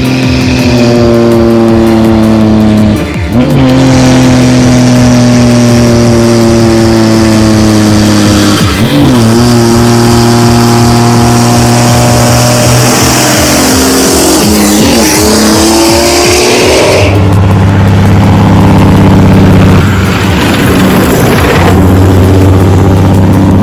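Heavy logging truck's diesel engine labouring under load. Its pitch sags slowly and then jumps back at gear changes about every five or six seconds, settling to a lower steady note near the end.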